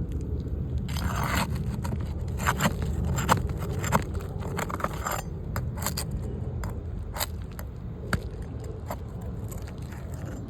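Scraping and sharp irregular clicks of hand tools and metal working on asphalt roof shingles, thickest in the first half, over a steady low rumble.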